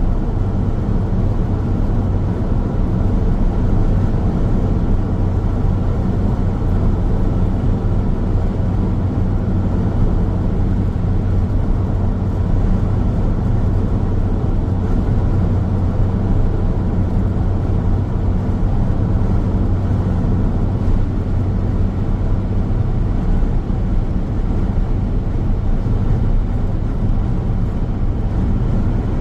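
Car driving steadily on a highway: continuous tyre and engine road noise with a steady low hum.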